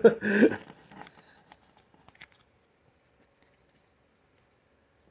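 A word of speech, then a few faint clicks and light rustles of trading cards being handled, dying away to near silence about two seconds in.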